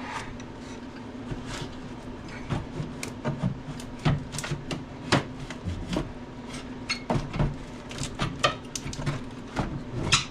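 Irregular metallic knocks, clunks and scrapes as a Ford 6.0 diesel turbocharger is wrestled and wiggled out of the engine bay, over a steady low hum.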